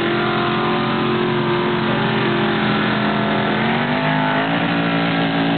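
Formula Offroad hill-climb car's engine running hard as the car climbs a steep sand slope; the pitch sags slightly, then rises about four seconds in as the revs pick up.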